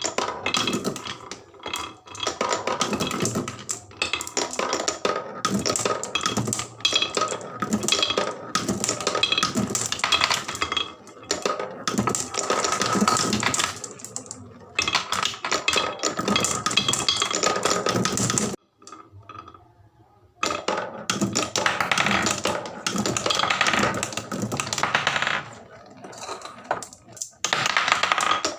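Many marbles rolling and clattering down wooden HABA marble-run slopes: a dense, continuous rattle of clicks and knocks. It stops briefly about two-thirds of the way through, then starts again.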